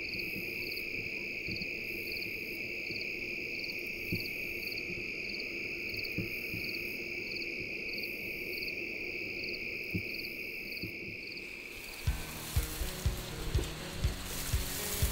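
Dusk insect chorus of crickets: a steady high trill with a regular pulsing chirp above it, about two a second, and slower rhythmic bursts higher still. About twelve seconds in it cuts off and music with a steady beat takes over.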